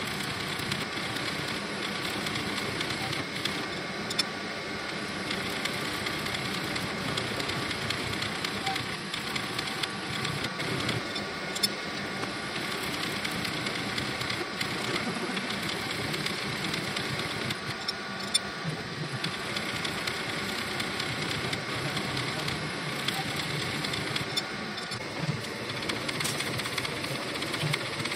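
Slotting machine cutting gear tooth flanks with a single-point tool bit: a steady mechanical clatter of the reciprocating ram and cutting, with a few sharp clicks.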